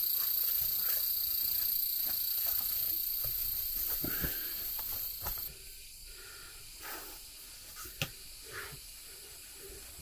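Forest insects droning, a steady shrill hiss that cuts off about five and a half seconds in. A few soft knocks follow.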